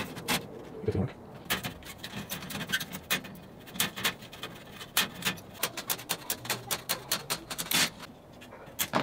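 Scissors snipping through thin perforated aluminum sheet: a quick, irregular string of sharp metallic snips, about three a second.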